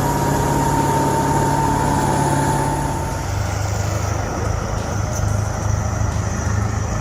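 A heavy vehicle's engine running steadily, with a high whine over it that fades out about three seconds in.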